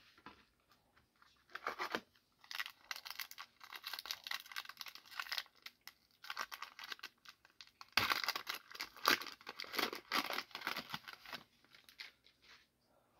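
Wrapper of a 2023 Donruss football trading card pack being torn open and crinkled by hand, in several bursts of crackling, the longest and loudest starting about eight seconds in.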